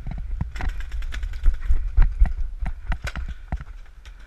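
Paintball shots: a quick, irregular string of sharp pops and knocks, densest in the middle and thinning near the end, over a low rumble.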